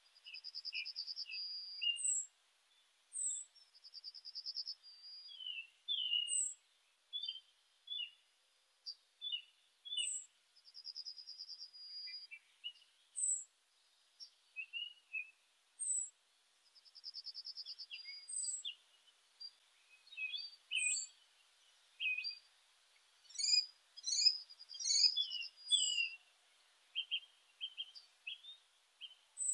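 Songbirds singing and calling: short chirps, a high note repeating every two to three seconds, and trills about a second long, with calls crowding together near the end.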